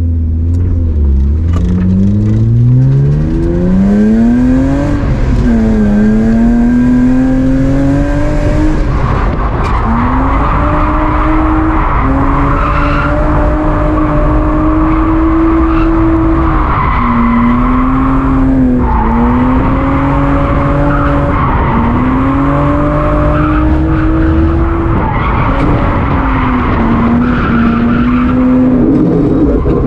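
BMW E36 drifting: the engine revs steeply over the first few seconds, then is held high through long slides, its pitch dipping briefly every few seconds. From about nine seconds in, tyres squeal and skid under the engine.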